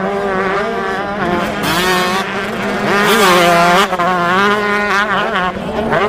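Motocross dirt bike engines running at high revs, the pitch rising and falling with the throttle, loudest a little past the middle.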